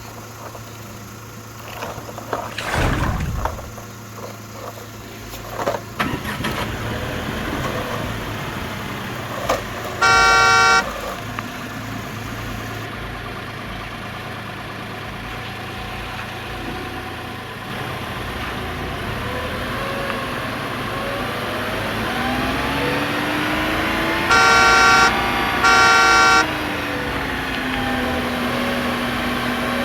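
Remote-control toy car running, its motor sound rising and falling in pitch. The toy's horn sounds once about ten seconds in and twice in quick succession later on.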